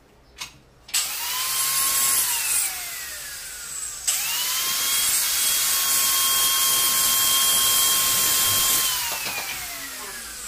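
Handheld electric tile cutter running in two bursts: a short run about a second in that winds down with falling pitch, then a longer run cutting a piece of tile, its high whine holding steady with a cutting hiss before winding down near the end.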